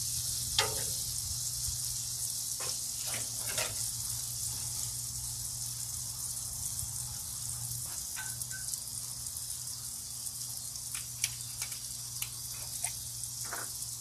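Sliced bananas in a butter and brown sugar sauce sizzling steadily on a Blackstone flat-top griddle, with a steady low hum underneath and a few faint ticks.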